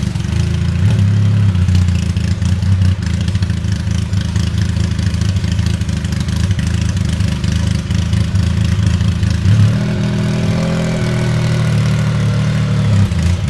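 Straight-piped twin-turbo 3.8-litre flat-six of a Singer DLS Turbo running at a steady idle with a deep rumble. Its note shifts slightly about ten seconds in.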